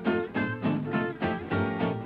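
Background music: upbeat swing-style tune with plucked guitar and a steady beat.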